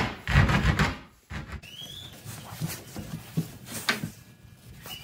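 A flat steel file scraping the wooden tip of a yew longbow in a couple of rough strokes, taking it down where the Sharpie marks show it rubs inside the horn nock. After a cut come faint handling ticks and two brief high squeaks that rise and fall.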